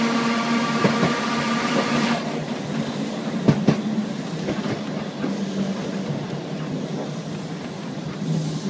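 Glasgow single-deck electric tram running on rails: a steady whine from the traction motors stops about two seconds in, leaving the wheels rumbling along the track with a few sharp clicks, two of them close together.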